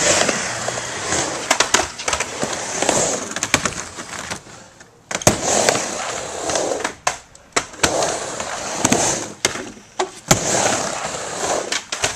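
Skateboard wheels rolling back and forth on a wooden mini ramp. The rolling rises and fades with each pass, broken by sharp clacks of the board and trucks, with one loud knock about five seconds in.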